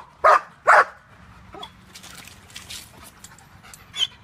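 German Shepherd barking three times in quick succession, then whining and whimpering more quietly, with a short high yelp near the end.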